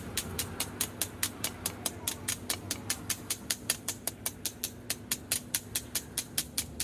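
A small hammer tapping quickly along a strip of sheet steel lying on concrete, an even run of sharp metallic taps at about five a second.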